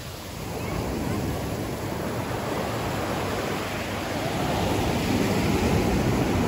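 Ocean surf: small waves breaking and washing up a sandy shore as a steady rush, swelling louder about half a second in and again in the second half.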